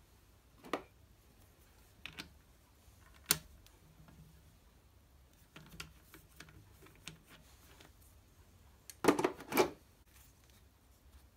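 Scattered metal clicks and knocks as the three-jaw chuck of a Drummond B-Type lathe is loosened and a small timing pulley is taken out of its jaws. The loudest, a quick cluster of clunks, comes about nine seconds in.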